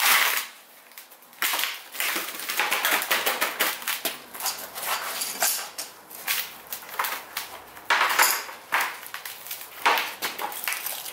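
Irregular knocks of a hammer on a wooden casting flask, and packed sand crunching and scraping as the sand mould is broken open by hand to free a freshly poured aluminium casting.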